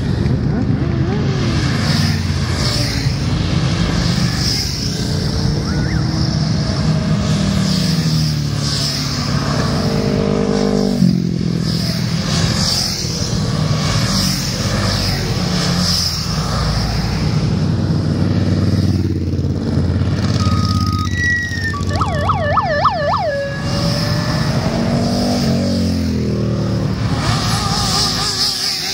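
A long column of motorcycles riding past one after another, their engines running and revving as each goes by. About three-quarters of the way through, a brief warbling siren-like tone sounds over the engines.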